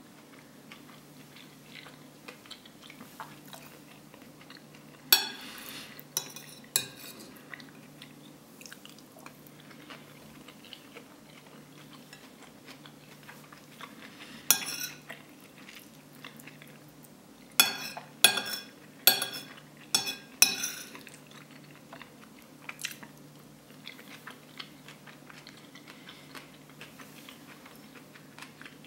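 A metal spoon scraping and clinking against a plate as it gathers up leftover rice and curry. There are three sharp strikes between about five and seven seconds in, one near the middle, and a quick run of five about two-thirds of the way through.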